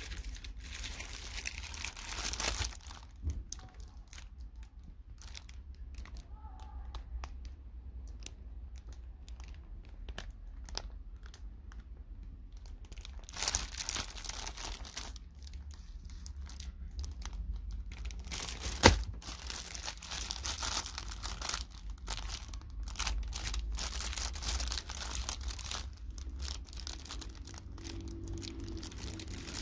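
Clear plastic packaging around a folded fabric tablecloth crinkling and crackling as it is handled, in irregular rustles with one sharp click about two-thirds of the way through.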